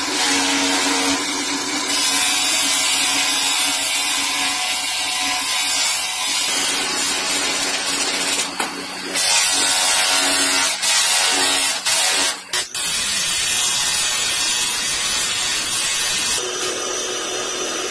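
Motor-driven polishing spindle running steadily with a humming tone, and the hiss of a steel aldrop bar pressed against its spinning wheel; the sound dips briefly a few times a little past the middle.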